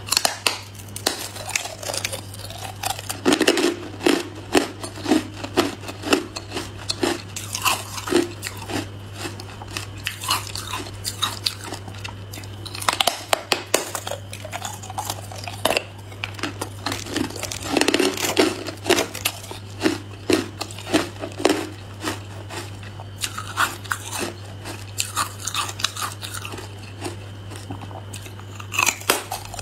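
Person biting and chewing carbonated ice: repeated crisp crunches that come in dense clusters, with quieter chewing between them. Under it runs a steady low hum.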